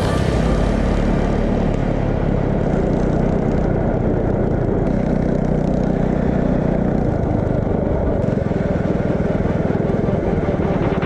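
Small engine of a motorized drift trike running steadily.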